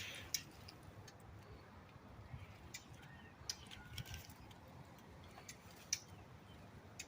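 Faint, sharp tick and click calls from the parent birds near their fledgling, coming singly at irregular moments, roughly one every second or so.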